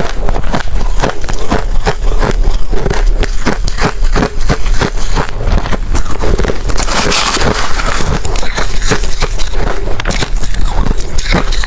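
Close-miked chewing of ice: rapid crackling crunches as hard ice is bitten and ground between the teeth, with a longer, harsher crunch about seven seconds in.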